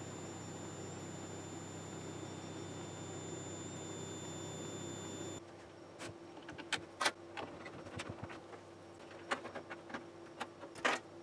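Steady high-pitched squeal from a Delta DPS-210 ATX computer power supply with a failed electrolytic capacitor, over a low hum, cutting off suddenly about five seconds in. Then scattered clicks and knocks of hands working connectors inside a PC case.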